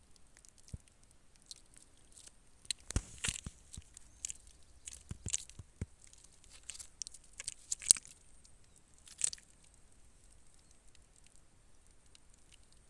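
Irregular crunching clicks and crackles. They come in clusters, loudest about three seconds in and again around eight seconds.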